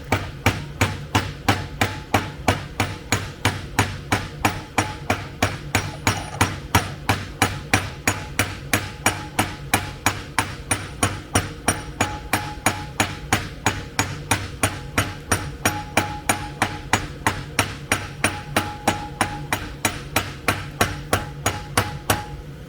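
Hand hammer beating over the forge-heated end of a metal rod, mushrooming it so the part on the rod can't come off. Steady, even blows, about three a second, each with a short metallic ring, over a steady low hum.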